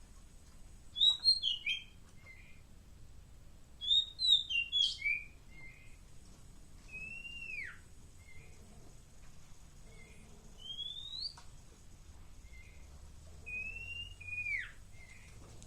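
A pet songbird calling: two quick bursts of high chirps, then single drawn-out whistles that slide down or up in pitch, with soft short chirps in between.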